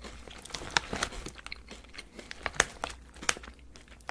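Close-miked chewing of Japanese candy, with irregular sharp clicky crunches. The loudest come just under a second in and again about two and a half seconds in.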